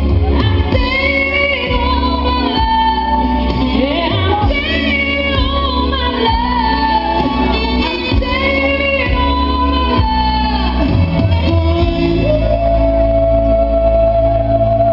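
A woman singing live into a microphone over amplified music with a heavy bass.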